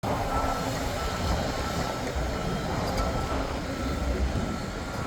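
Heavy construction machinery running steadily: a continuous low diesel rumble with a faint steady whine above it.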